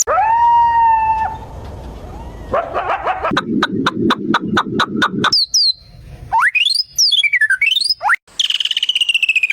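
A quick succession of different bird-like calls: a held whistling call in the first second, a rapid run of clicking pulses about five a second, then sweeping chirps and whistles that rise and fall, ending in a falling trill.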